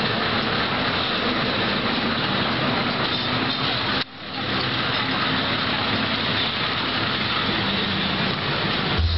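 Children's train ride running along its track: a steady mechanical rumble and rail noise, with a brief sudden drop about four seconds in.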